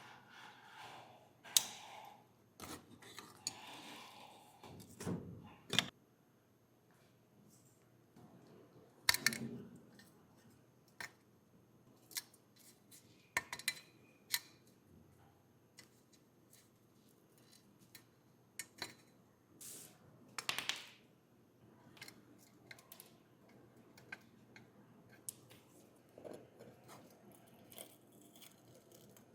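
Small tools and metal model parts being handled on a workbench: scattered sharp clicks, taps and clinks, with a few short scrapes.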